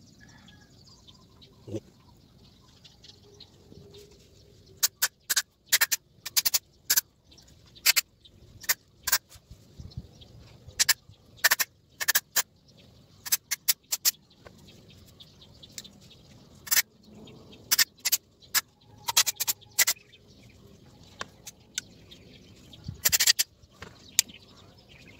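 Aerosol carburetor and throttle body cleaner sprayed through its straw into a throttle body in many quick squirts, with one longer burst near the end.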